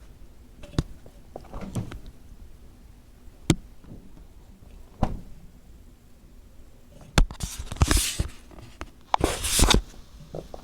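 A few sharp knocks, then two brief bursts of rustling noise near the end.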